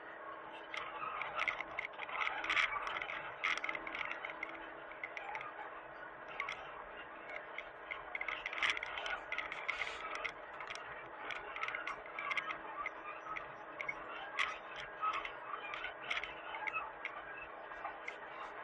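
Hitachi mini excavator working: a steady engine drone with irregular clicks, knocks and scraping over it.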